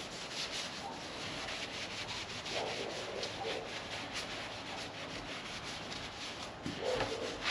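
Shop towel soaked in acetone wiped back and forth over a ground, bare-metal body panel, a run of short rubbing strokes cleaning off grinding dust before paint.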